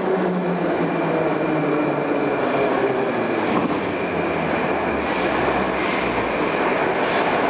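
81-717.5M metro train running slowly into a station, its motor whine falling in pitch as it slows. A high steady squeal and a few clicks sound over the running noise, with a low rumble swelling toward the end.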